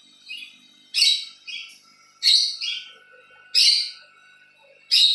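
Small birds chirping: short, high chirps repeating about once a second, some in quick pairs.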